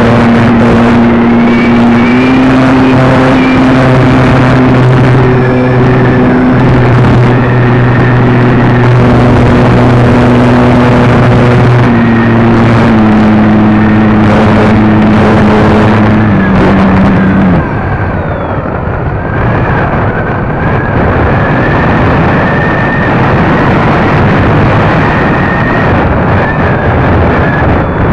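Motor and propeller of a large foam RC plane, heard from the plane's onboard camera: a loud steady hum that steps up and down in pitch with the throttle, mixed with wind rush. A bit over halfway in, the motor cuts off and only wind noise remains as the plane glides down.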